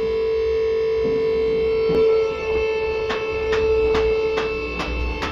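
Two-post car lift raising a car: its power unit runs with a steady hum, and from about three seconds in the lift's safety latches click into place about twice a second as the carriages climb.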